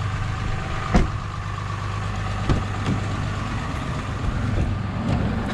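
Truck engine running with a steady low hum, and a sharp knock about a second in.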